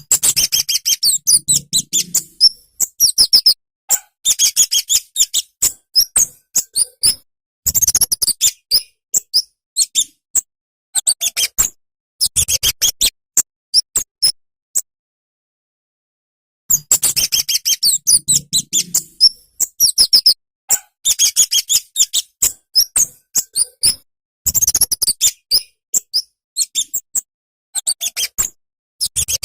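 Kemade (cabe-cabean), a flowerpecker, singing: rapid high, thin chirping twitters in bursts of a second or two, broken by short pauses and one longer pause about halfway through.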